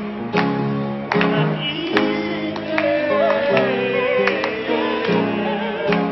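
A woman singing with a wavering, held line over an upright piano played in chords struck about once a second, with hand claps from people joining in.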